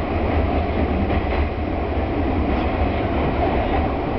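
Train running through an underground tunnel, heard from inside the car: a steady low rumble of wheels on rails.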